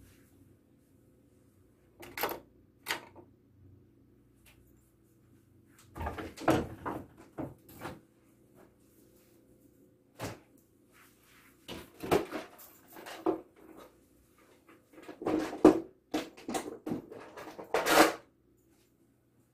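Scattered knocks, clicks and clatter of small household items being picked up, moved and set down, with what may be a drawer or cupboard being handled; the loudest come near the end. A faint steady hum runs underneath.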